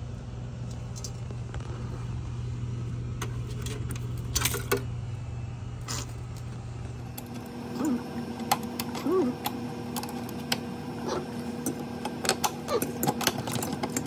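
Scattered clicks and light metallic clinks of copper refrigerant tubing and fittings being handled around a refrigerator compressor, over a steady low hum. The hum changes pitch abruptly about halfway through.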